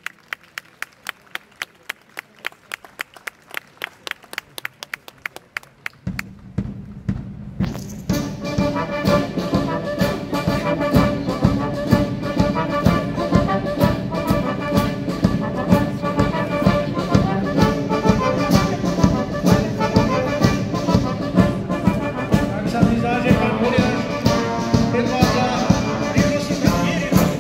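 Military brass band: a quick, steady tapping beat sounds first. About six seconds in the full band enters with trombones, trumpets, tubas and bass drum, playing loudly to a regular beat.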